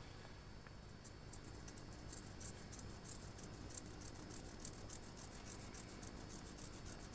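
Fibreglass brush scrubbing the side of a model railway rail, faint, quick scratching strokes about five a second starting about a second in, polishing the metal clean for soldering.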